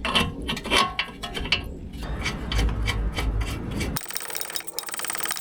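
Hand tools working on a steering ball joint nut: irregular metallic clinks and scraping of wrenches, then about four seconds in a sudden fast run of fine, even clicks.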